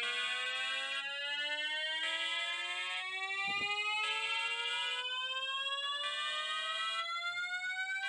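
Synthesized emergency alert alarm: a tone with several overtones rising slowly and steadily in pitch, layered over steady tones that change about once a second.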